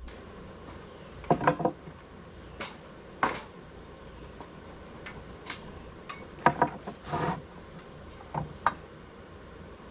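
Scattered short clinks and knocks of tools and hard objects being handled during building work, some in quick pairs, a second or more apart.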